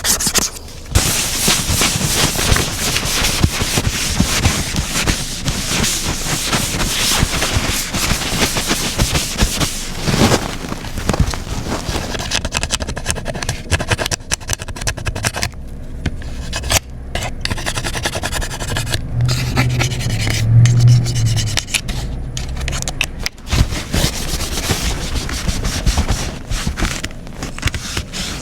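Rough scrubbing and scraping against an iPad's casing while it is deep-cleaned, running on with short breaks. A brief low hum comes in about twenty seconds in.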